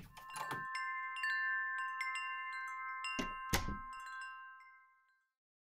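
Wind chimes tinkling: a cluster of strikes sets several high, overlapping tones ringing, with a second flurry of strikes about three seconds in, and the ringing fades out near the end.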